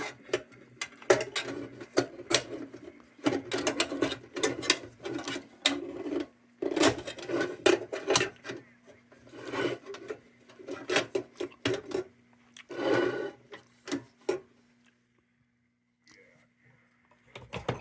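Sheet-metal parts of a cold-blast lantern being handled and fitted together: irregular clicks, clanks and brief scraping, with a pause about three seconds before the end.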